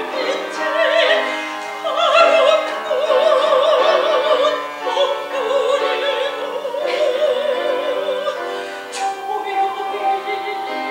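Soprano singing a Korean art song in operatic style, holding long notes with a wide vibrato, accompanied by grand piano.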